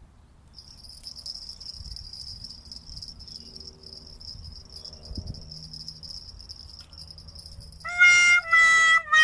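Insects chirring: a steady, high-pitched, pulsing buzz that starts about half a second in. About a second before the end, a much louder pitched sound breaks in as a few held notes that step slightly in pitch.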